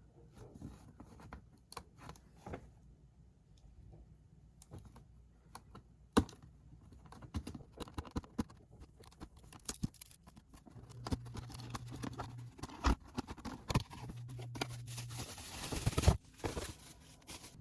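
Irregular clicks and taps of small objects being handled, busier toward the end, with a short low hum twice in the middle.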